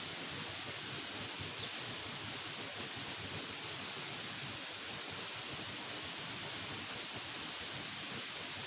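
Steady rushing hiss of a waterfall, even and unbroken throughout.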